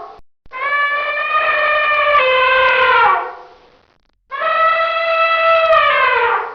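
Elephant trumpeting: two long calls a second apart, each holding a steady pitch and then dropping away at the end.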